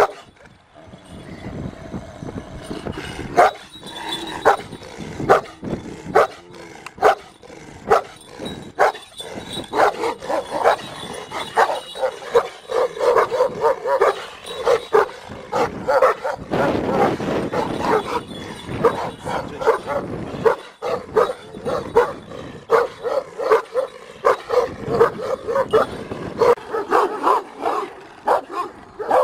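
Kangal shepherd dogs barking over and over in deep, short barks, one or two a second and busier in the second half.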